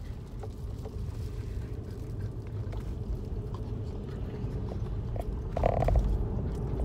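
Steady road and engine rumble inside a moving car's cabin. About five and a half seconds in comes a short, louder nasal sound from a French bulldog puppy sniffing at food held just above its nose.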